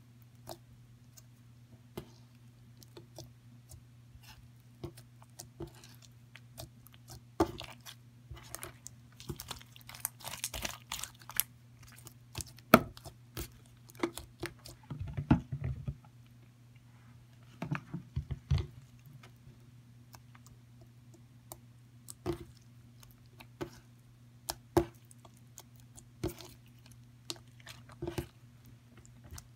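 Fingers poking, pressing and kneading soft glossy slime, making irregular sharp sticky clicks and crackles. The clicks bunch into a dense crackling stretch about ten seconds in. A steady low hum runs underneath.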